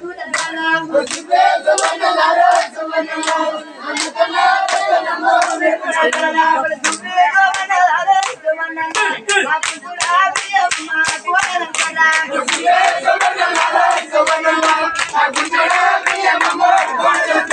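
Group singing a folk chant with steady rhythmic hand clapping, the claps quickening to about three a second after the middle.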